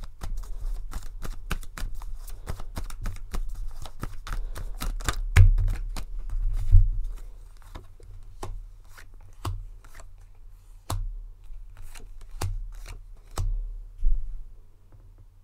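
Tarot cards being shuffled: a fast run of papery flicks for about seven seconds, then a handful of separate card snaps a second or so apart, over a low steady hum.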